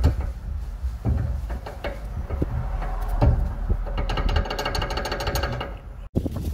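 Rapid mechanical rattling and clicking of a power tool working on a car's steering tie rod, growing louder and more even after about four seconds and cutting off abruptly shortly before the end.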